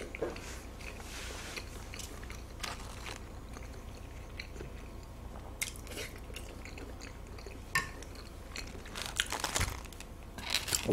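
Close-miked chewing and mouth sounds of one person eating, with a few short clicks and knocks from wooden chopsticks and plates, most of them near the end.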